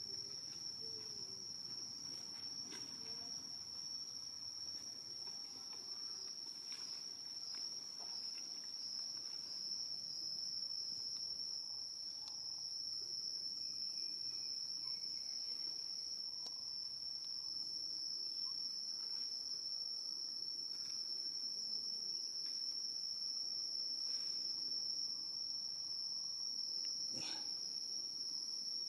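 Steady high-pitched insect chorus, one unbroken tone throughout. A single sharp click near the end.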